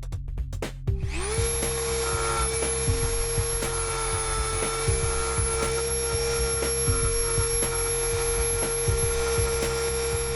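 Dremel rotary tool with a sanding drum spinning up about a second in, then running at a steady high pitch while it sands the face of an airsoft gearbox tappet plate. Background electronic music with a beat plays underneath.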